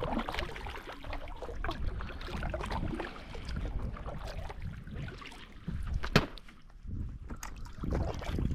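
Kayak paddling: irregular splashing of the paddle blades dipping into the water and dripping, over a low rumble, with one sharp knock about six seconds in.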